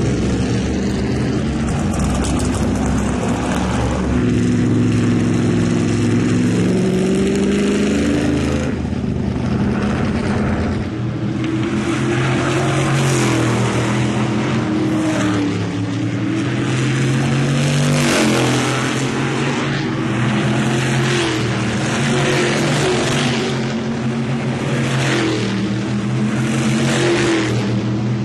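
Supermodified race car engines running loud, their pitch rising and falling again and again as the throttle opens and closes.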